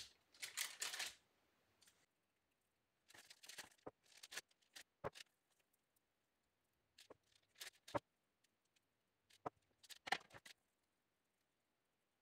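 Faint rustling of parchment paper and light taps of a small cup and fingers on a baking tray as dough balls are pressed flat into mini pizza bases, in four or five short bursts with near silence between.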